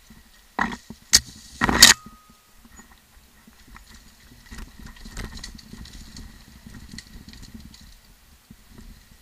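Mountain bike rattling down a steep, rocky trail: three loud knocks and scrapes in quick succession about a second in, then steadier clatter and crunching of tyres and frame over loose stones.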